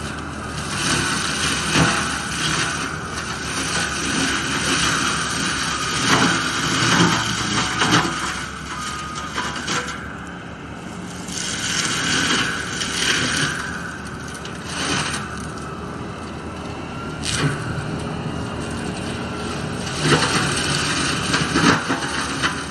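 New Holland tracked skid steer with a forestry mulching head running under load, its spinning rotor grinding through olive brush: a steady machine din with irregular louder surges as the head bites into wood.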